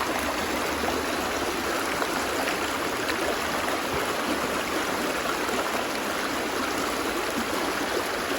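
Steady rushing of a river or stream flowing, an even wash of water noise.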